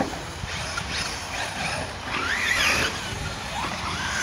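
Radio-controlled truggies racing on a dirt track: the whine of their motors rises and falls in pitch as they accelerate and brake, and is loudest about halfway through.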